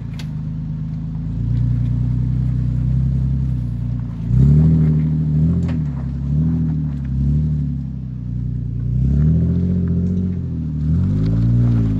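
Toyota FJ Cruiser's 4.0-litre V6 climbing a steep rutted dirt track under load, the revs rising and falling in repeated throttle surges: several short ones from about four seconds in, then longer, higher ones near the end.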